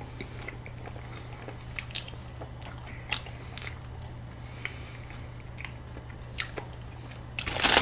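Close-miked biting and chewing of a soft cream-topped pastry: quiet, scattered wet mouth clicks over a steady low hum. Near the end, plastic wrapping starts crinkling.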